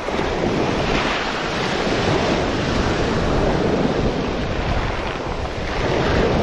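Small sea waves breaking and washing up over a pebble shore, with wind buffeting the microphone.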